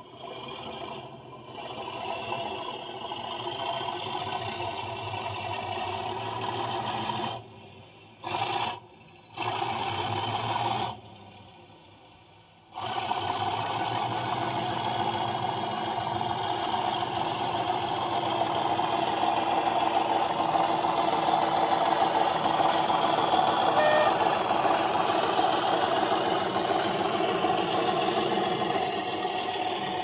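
Accurascale OO gauge Class 37 model locomotive's sound decoder playing English Electric diesel engine sound through its onboard speaker as the model runs. The engine sound cuts out briefly three times between about seven and thirteen seconds in, then comes back steady and grows louder in the second half, with a faint high whine rising over it.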